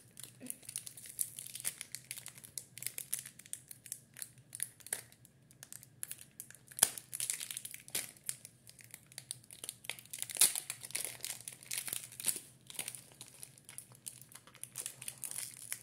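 Foil Pokémon card booster pack being torn open and its wrapper crinkled: a dense run of crackles with a few sharper snaps.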